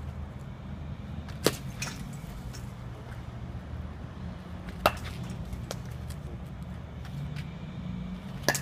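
Baseball bat hitting soft-tossed balls: three sharp cracks about three and a half seconds apart, with a few fainter knocks between them, over a low steady background hum.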